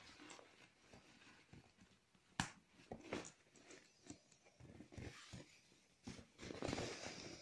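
Faint handling noises of a quilted fabric stroller-seat liner being fitted into place: fabric rustling with scattered light knocks, one sharp knock about two and a half seconds in, and a louder stretch of rustling near the end.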